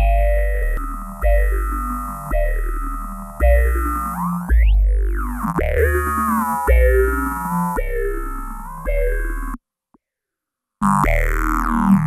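Modular synthesizer notes, about one a second with a heavy bass, played through a Boss PH-2 Super Phaser converted to a Eurorack module. The phaser's notches sweep up and down through each note. The sound cuts out completely for about a second near the end, then starts again.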